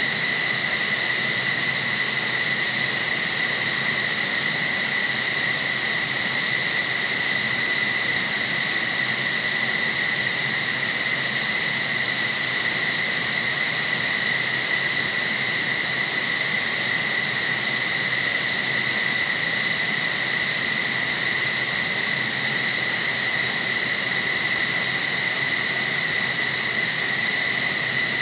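F-15SG's twin Pratt & Whitney F100 turbofans running at idle: a steady high turbine whine over a constant rush of jet noise, unchanging throughout.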